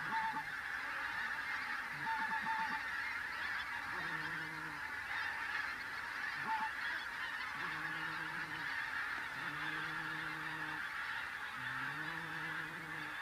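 A large flock of wild geese calling high overhead, a dense continuous chatter of many overlapping honks with a few single calls standing out.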